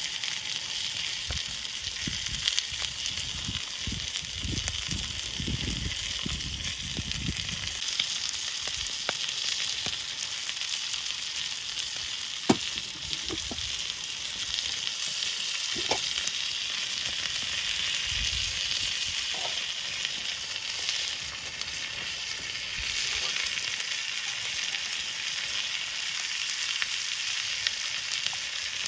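Food sizzling in a frying pan: a steady hiss with scattered small pops.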